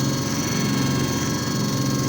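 JFJ Easy Pro disc repair machine running: a steady motor hum with several thin, high, constant tones over it.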